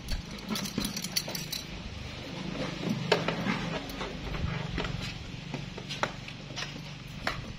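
Irregular light clicks and clinks of small hard objects being handled, over a low steady hum.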